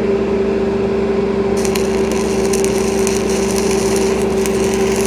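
Stick welding arc struck about a second and a half in, then a steady crackle and spatter as a cellulose-coated electrode burns on the underside of 6-inch schedule 80 pipe. A steady engine drone runs underneath.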